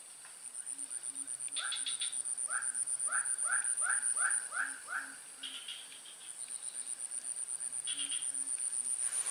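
Swamp wildlife chorus: an insect's high, rapid pulsing trill that pauses midway and starts again, with a run of short rising calls from another animal, about two a second, in the first half.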